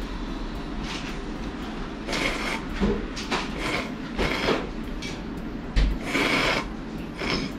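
Noodles slurped in a series of short noisy pulls, about half a second each, beginning about two seconds in and repeating several times.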